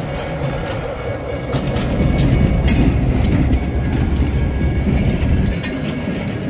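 Union Pacific No. 96 diesel switcher locomotive running past at low speed, its engine heard as a low steady sound with wheels clicking over the rail joints. It is loudest from about two to five and a half seconds in as the locomotive goes by, then eases off.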